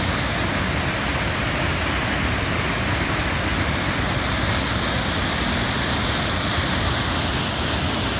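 Waterfall plunging through a rock canyon into a pool: a loud, steady rush of falling water.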